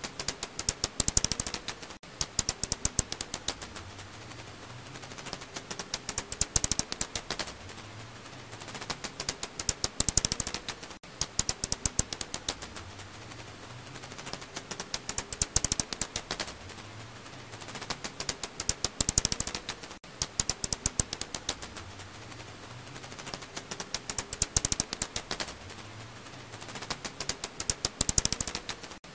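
Recorded calls of a black house bat (검은집박쥐): rapid trains of sharp clicks, coming in bursts of a second or so every few seconds.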